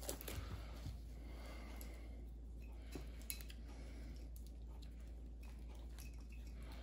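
Faint, scattered light clicks from hands working apart a junction in a factory electric-fan wiring harness, over a steady low hum.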